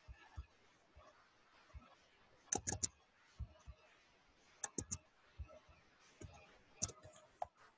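Faint computer mouse clicks and keystrokes in short groups of two or three, with a few single clicks between them.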